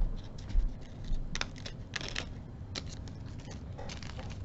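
Scattered light clicks and rustling from small jewelry findings in a plastic bag being handled, with a few sharper clicks in the middle.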